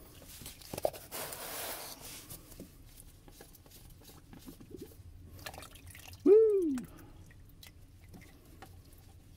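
Used engine oil from a Chevy Cruze 1.4 LE2 draining into a plastic drain pan as the drain plug comes out, with a splashing pour about a second in, then dripping. A short, loud call that rises then falls in pitch comes a little past the middle.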